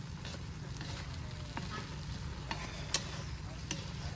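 Pork slices with lemongrass and chili sizzling in a steel wok as they are stir-fried with chopsticks. Several sharp clicks of the chopsticks against the pan cut through the steady frying hiss, the loudest about three seconds in.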